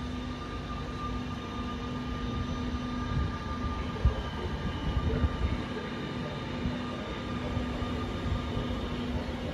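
Siemens Desiro ML electric multiple unit rolling past: a steady electric hum over a low wheel-and-track rumble, with a single sharp clack about four seconds in.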